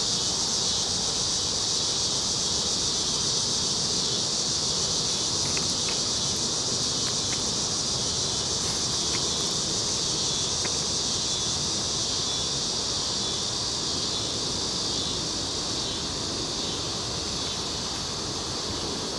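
Steady, high-pitched chorus of insects, with a fainter even rushing hiss beneath it and a few faint ticks in the middle.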